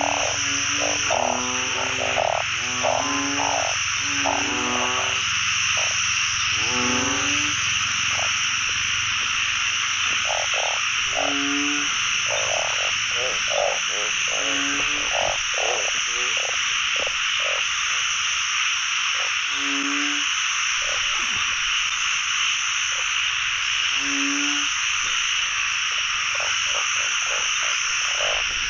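A pond full of frogs calling in a breeding chorus. Short, pulsing croaks stand out over a dense, steady trilling chorus. The croaks come thick and overlapping at first and thin out to scattered single calls after about eight seconds.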